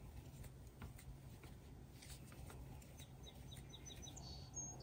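Near silence: quiet room tone with faint scattered ticks from a crochet hook working yarn. About three seconds in there is a quick run of faint, short, high chirps.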